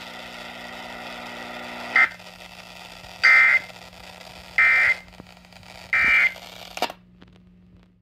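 S.A.M.E. weather radio playing the end-of-message data bursts that close an alert: three short, harsh digital squawks about 1.3 s apart over the broadcast's steady hum and hiss. The audio cuts off abruptly near the end as the alert finishes.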